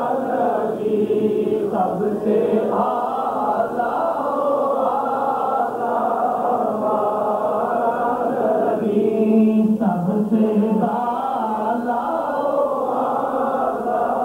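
Unaccompanied devotional naat recitation: continuous chanting with long held notes.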